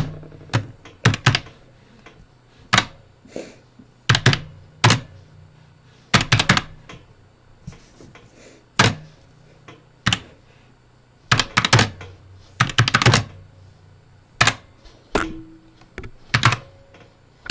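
Typing on an SK61 60% keyboard with Gateron optical red linear switches: the keys clack in irregular clusters of a few quick strokes, with short pauses between them.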